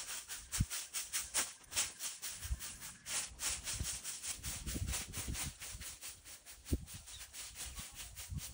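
Twig broom sweeping bare, dusty dirt ground in quick, even brushing strokes, about three or four a second. A couple of brief low thumps stand out, about half a second in and near the end.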